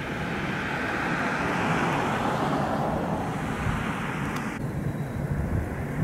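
Outdoor background noise: a steady rumble of distant vehicles, with wind buffeting the microphone. The higher hiss swells over the first couple of seconds and cuts off suddenly about four and a half seconds in.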